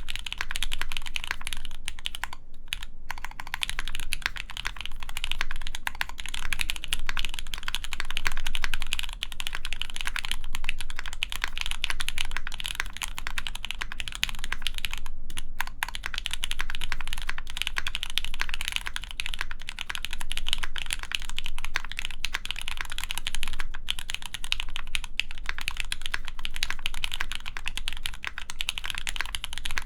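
Steady typing on a Gentoo mechanical keyboard with lubed Gateron Mizu Minks switches, GMK keycaps, a full aluminium plate and foam in the case: a dense stream of keystroke clacks. There are brief pauses about three seconds in and again about halfway through.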